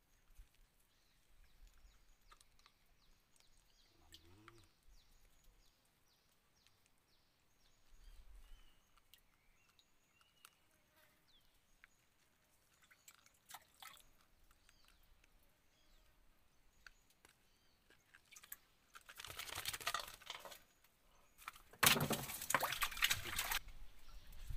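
Water splashing in two loud bursts near the end, each lasting about two seconds, over a quiet background with faint scattered ticks.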